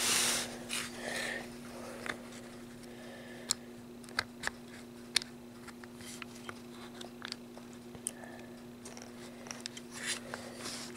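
Scattered small sharp clicks and light scraping of an unpowered HO-scale Bachmann model diesel locomotive being handled and lined up on a piece of track, its plastic and metal wheels knocking against the rails. A faint steady hum runs underneath.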